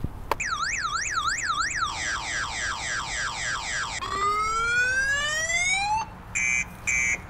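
Recorded car-alarm sound played from a Bluetooth speaker hidden under a car, cycling through its tones: a fast up-and-down warble, then rapid falling chirps, then slow rising whoops, then short on-off beeps starting about six seconds in.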